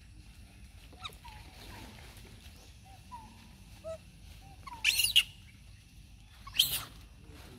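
Young long-tailed macaques calling: a few faint short chirps, then two loud, high, harsh screams about a second and a half apart.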